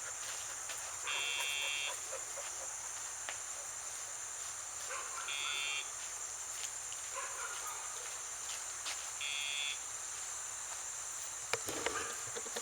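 Short electronic beeps from the sound box on a Dogtra e-collar, marking the pager signal sent to the dog: three steady beeps about four seconds apart. A steady high-pitched hiss runs underneath, and there are a few sharp clicks near the end.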